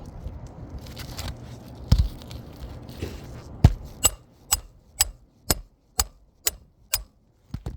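Hammer driving a roofing nail into an asphalt shingle: a few heavier blows, then a steady run of about seven sharp taps, roughly two a second.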